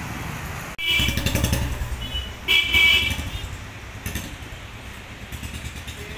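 Motorbike engine running close by, with a horn honking briefly about two seconds in and again for about half a second shortly after, over street traffic noise.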